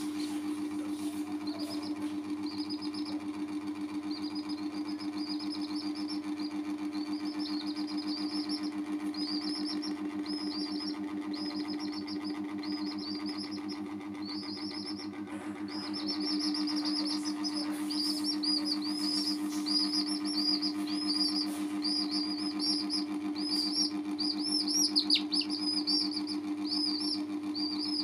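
Baby chicks peeping in quick, repeated high chirps, getting louder and busier about halfway through, over a steady low hum.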